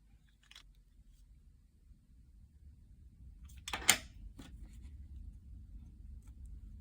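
Quiet handling sounds from craft work: a few faint clicks, then one brief, louder rustle-like click about four seconds in, over a low steady hum.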